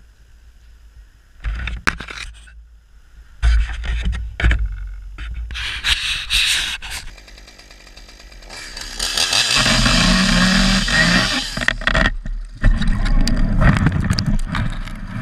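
Chainsaw cutting in a tree, running hardest for a few seconds in the middle. Around it come irregular bursts of rustling and sharp knocks as branches and gear brush against a helmet-mounted camera.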